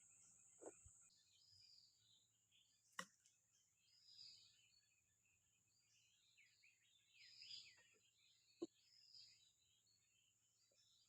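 Faint bird calls, short chirps every couple of seconds, over a steady high insect drone. Two sharp clicks stand out, about three seconds in and again near the end.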